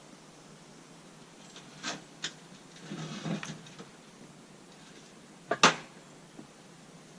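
Workshop handling sounds as sawmill parts are shifted by hand: two light knocks, a brief scraping rustle, then a sharp double knock about five and a half seconds in, the loudest sound.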